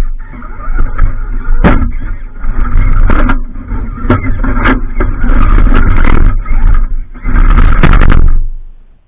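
RC rock crawler's electric motor and drivetrain whining as it drives over rocks, with knocks and scrapes of the truck against the stone. The sound falls away sharply near the end.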